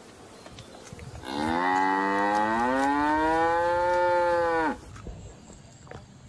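A calf mooing: one long, loud call of about three and a half seconds that rises in pitch at the start, then holds steady and stops abruptly.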